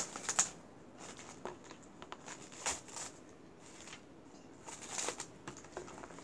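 Plastic cling wrap crinkling and rustling faintly as hands press and smooth it tightly around a wax-paper-wrapped block of cornbread, with a couple of sharper crackles near the start.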